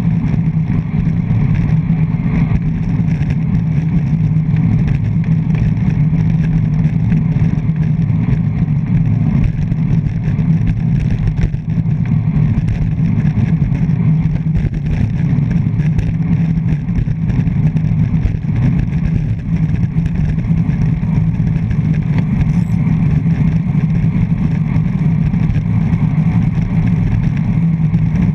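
Wind rushing over a front-mounted GoPro Hero 3+ on a road bike at speed, a loud steady rush heaviest in the low end, with road vibration coming through the mount.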